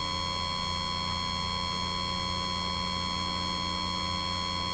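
Steady electrical hum and buzz in the sound system, a set of constant tones, low and high, with nothing else.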